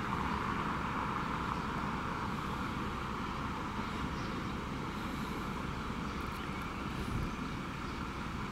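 Steady engine noise, running evenly without change.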